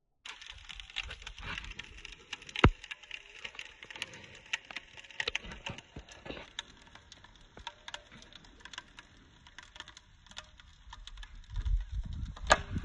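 Irregular crackling and ticking from a capped plastic water bottle holding liquid nitrogen, the frosted plastic creaking as the boiling nitrogen builds pressure inside. A low rumble rises near the end.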